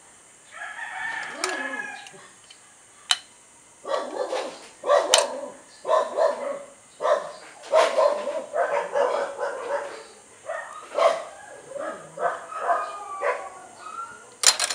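Chickens calling and a rooster crowing, repeated over several seconds, with a few sharp metallic clicks of a blade prying at the steel pulley's oil seal.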